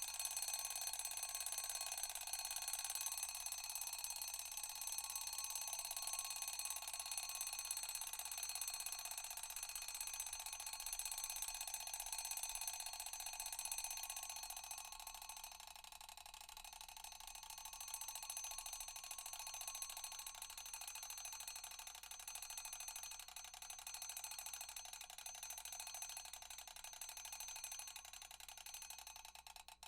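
Alarm ringing: a continuous, high-pitched ringing that dips slightly about halfway through and then carries on until it cuts off abruptly.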